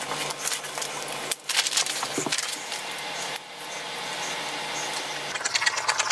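Paper pattern sheets and plush fabric rustling and scraping as they are handled and marked on a cutting table, over a steady low hum. Near the end, a run of quick snips as scissors start cutting the fabric.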